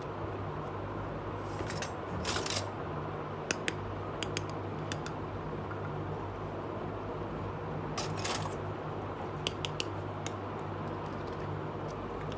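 Scattered light clicks and taps of small plastic toy kitchen pieces being handled and set down on a hard surface, over a steady low hum.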